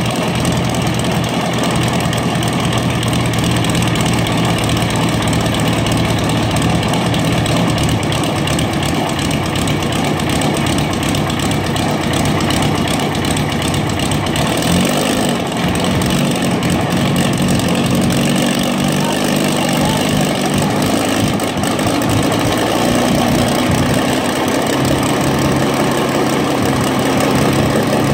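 Rolls-Royce Merlin 1650 cubic inch V-12 aircraft engine in an unlimited hydroplane running steadily at idle on its first firing on the trailer. Its engine speed shifts briefly about halfway through.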